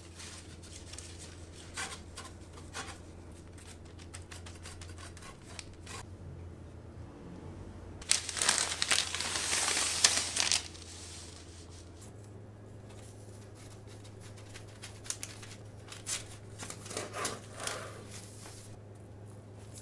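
A long kitchen knife cutting through a baked cocoa sponge sheet on parchment paper: light scraping knife strokes. About eight seconds in comes a loud rustle of parchment paper lasting a couple of seconds, then more scraping strokes near the end.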